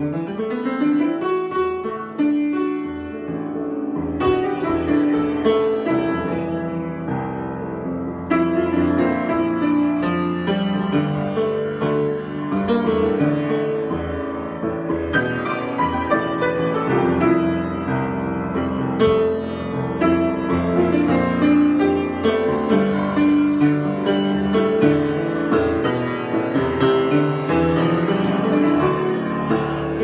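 Grand piano played solo in a free improvisation, a continuous stream of notes and chords, getting louder about eight seconds in.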